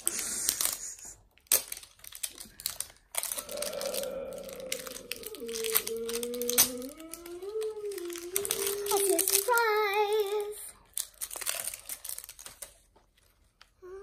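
The wrapping of an LOL Surprise ball crinkling and tearing as its layers are peeled off by hand, in quick crackly rustles. A child hums a wordless tune over it from about three seconds in until about ten seconds in.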